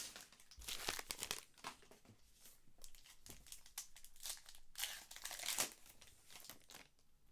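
Trading card pack wrappers crinkling and tearing, with cards handled, as packs are opened. Short, irregular rustles, the loudest about a second in and again about five seconds in.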